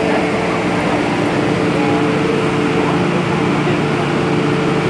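Steady hum and hiss of a stationary MTR M-Train's air conditioning and on-board equipment, with a few constant droning tones, heard through its open doors onto an underground platform.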